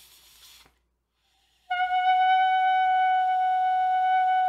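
A short breath in, then about a second and a half later a clarinet mouthpiece with its reed is blown to sound one steady, clear high note that holds without wavering. It is the tone a beginner should aim for with top teeth on the mouthpiece, the bottom lip over the bottom teeth and the lips tightened all round.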